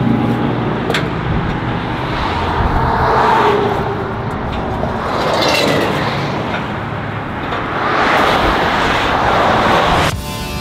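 Interstate traffic passing close by, the noise swelling and fading as several vehicles go past, with one sharp click about a second in. Guitar music comes in near the end.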